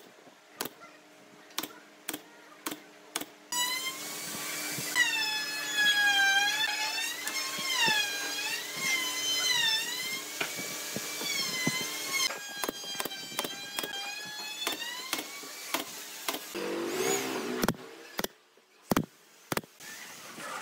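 SOYI pneumatic brad nailer firing into pine slats: sharp shots about two a second, a run of about six at the start and a few more near the end. Between them, a loud, high, whistle-like sound with overtones slides up and down for several seconds over a faint steady hum.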